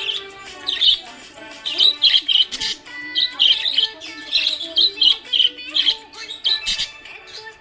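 Budgerigar chirping in quick clusters of short, high chirps, over background music with held notes.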